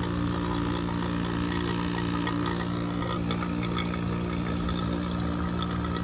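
HVAC vacuum pump running steadily with an even motor hum, evacuating a new central air conditioner's refrigerant lines.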